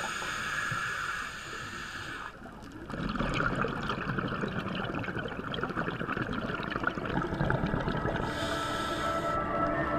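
Underwater ambience: a steady watery rushing with dense crackling, growing fuller about three seconds in. Faint steady tones of ambient music come in during the second half.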